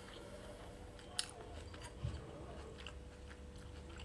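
A person chewing a mouthful of salad with arugula, close to the microphone, with a few faint clicks.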